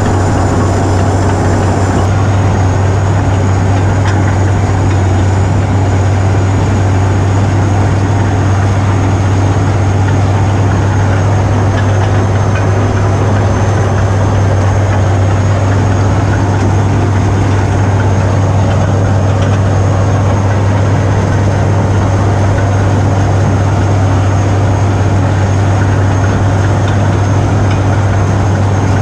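Cat D6C crawler dozer's diesel engine running steadily as the machine works, heard close up from on the dozer, with a strong steady low drone.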